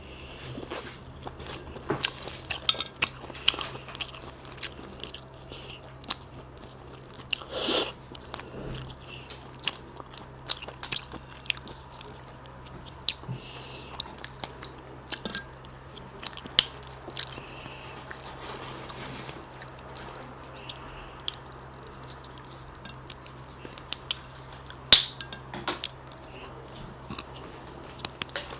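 Close-miked eating sounds of seasoned shellfish and sea snails: biting and chewing, with many short crisp clicks and smacks scattered through and one longer, louder burst about a quarter of the way in. A steady low hum runs underneath.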